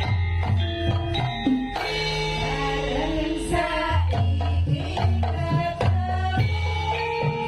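Javanese gamelan music: struck metal instruments ring out melodic tones over a repeating low drum and gong pattern.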